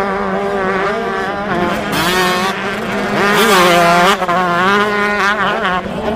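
Motocross dirt bikes racing: several engines at once, their pitch rising and falling as the riders rev, with one steady engine note running underneath.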